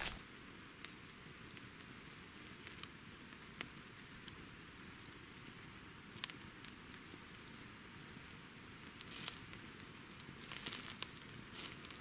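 Wood campfire crackling faintly: scattered sharp pops and snaps of burning wood over a soft hiss, a little denser near the end.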